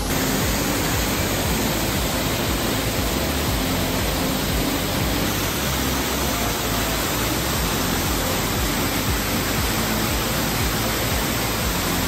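Steady rush of water from Sabbaday Falls, a small waterfall.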